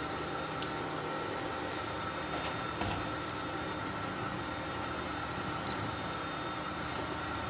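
Induction cooktop running under a stainless steel pot, a steady electric hum with a whine and fan noise. A few light taps and clicks sound over it as mugwort goes into the pot and a wooden spoon stirs it.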